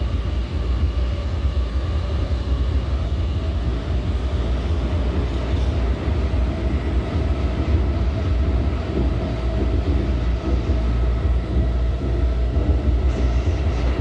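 R179 subway car running between stations, heard from inside the car: a steady low rumble of wheels on rail with a faint steady whine over it, and light clicking near the end.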